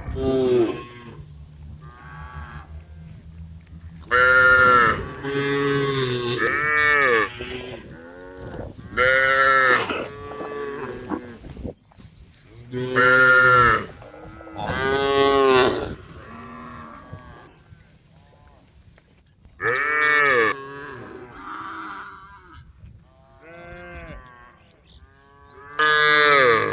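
Several cows mooing, one call after another: a loud moo every few seconds with quieter, more distant moos in between.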